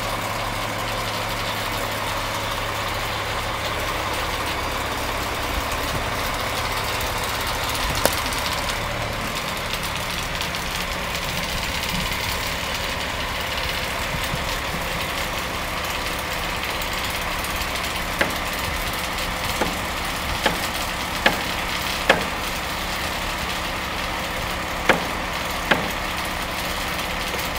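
Truck-mounted crane's engine idling steadily throughout. A sharp knock sounds about a third of the way in, and a string of about seven irregular sharp knocks follows in the second half.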